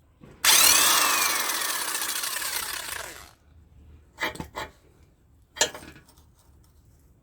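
A power tool runs for about three seconds on the Honda Activa fork's link nut and bolt, loud at first and fading with a falling whine as it winds down. Two short metallic clinks follow.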